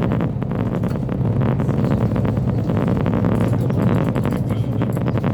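Steady drone of a Meteor hydrofoil under way, its diesel engines running with the rush of water and air, and wind buffeting the microphone.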